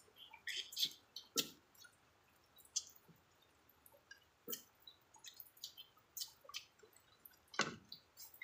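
Eating noises close to the microphone: irregular wet smacks and clicks of chewing and sucking meat off chicken bones, the loudest about a second and a half in and near the end.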